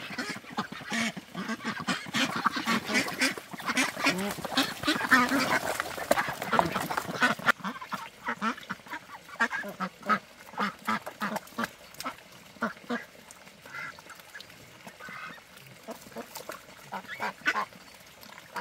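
A flock of farm poultry calling, many short calls overlapping. The calls are dense for the first seven seconds or so, then thin out to scattered single calls.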